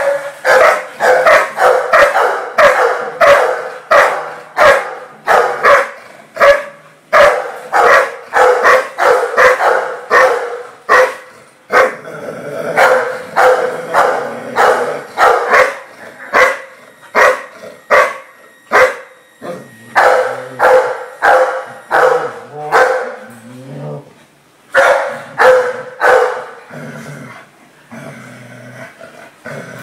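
Dogs barking and yipping in quick short barks, about two a second, during rough play-fighting between a husky and a Dalmatian; the barking thins out near the end.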